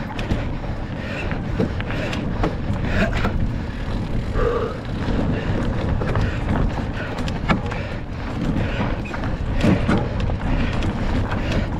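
Cross-country mountain bike ridden hard over rough ground, heard from an onboard camera: a steady wind rumble on the microphone with frequent clicks and knocks from the bike rattling and the tyres hitting the ground.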